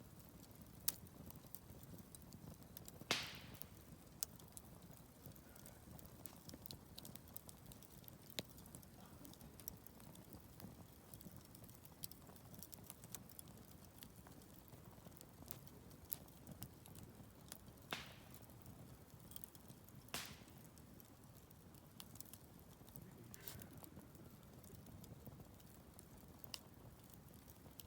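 Wood campfire burning: a faint steady crackle with scattered sharp pops and snaps, a few of them louder than the rest.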